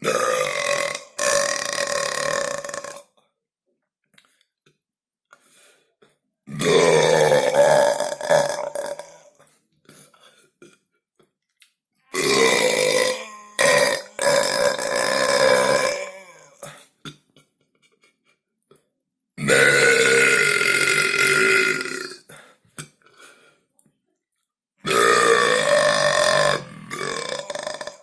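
A person belching loudly, five long drawn-out burps of about two to four seconds each, separated by a few seconds of quiet; some break off briefly in the middle before carrying on.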